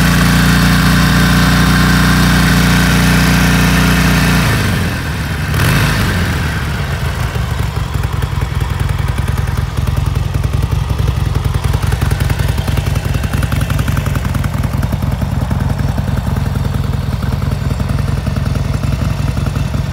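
2009 Harley-Davidson XL1200 Sportster's air-cooled 1200 cc V-twin idling. About four and a half seconds in, the steady drone drops to a lower, loping, uneven beat that carries on.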